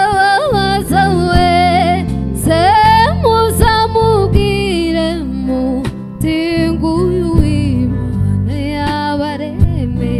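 Live band music: an electric bass guitar and a drum kit playing under a lead melody that slides and wavers between notes, with sharp drum and cymbal hits.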